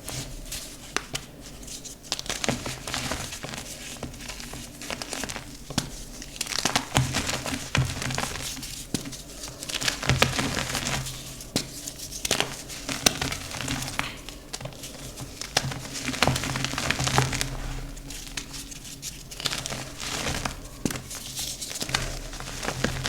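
Dyed gym chalk being crumbled and crushed by hand: dry crunching and crackling that comes in repeated surges, with sharp snaps among them.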